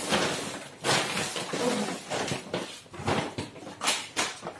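Grocery bags rustling and crinkling as they are handled, in short, irregular bursts with a few light knocks.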